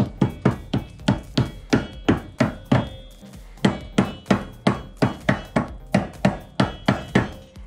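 A mallet strikes a car's steel wheel hub over and over, tapping a hub-centric ring onto it. The blows come about three a second, each with a short metallic ring, and there is one brief pause about three seconds in.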